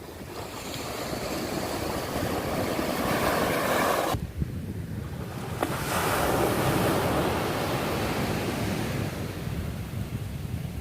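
Sea waves washing onto the shore, one surge building and cutting off suddenly about four seconds in, then another swelling and easing away, with wind rumbling on the microphone.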